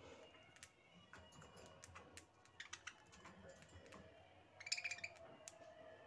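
Budgerigars in a wire cage: faint, scattered clicking and ticking from the birds moving and pecking, with one brief high chirp a little before the end.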